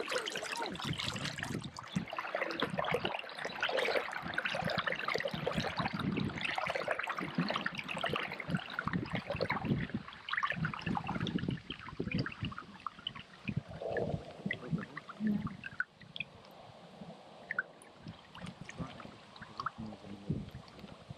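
Kayak paddle strokes: water splashing and trickling off the blades in a busy run of drips and small splashes that thins out and grows quieter in the last few seconds.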